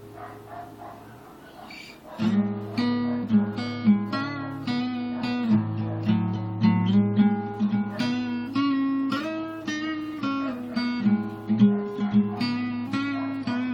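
Solo acoustic guitar, strummed and picked chords. It plays softly for about the first two seconds, then louder.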